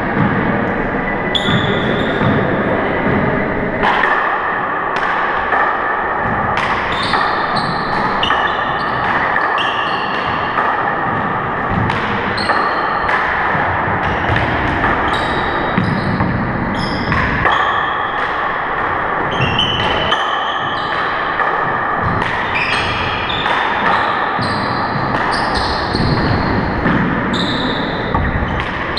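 Handball rally in an enclosed court: the rubber ball smacks the walls, floor and players' hands again and again, each hit echoing around the court. Short high squeaks of sneakers on the hardwood floor come between the hits, over a steady background hiss.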